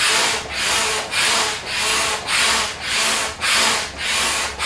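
Stansport double-action hand pump inflating a float tube: a rushing hiss of air on every up and down stroke, about two strokes a second, steady and even.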